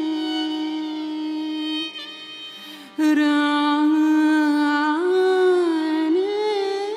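Hindustani classical music in raag Kirwani: a woman sings long held notes, with violin following her, over a steady tanpura drone. About two seconds in the sound falls away for roughly a second, then comes back with sliding notes.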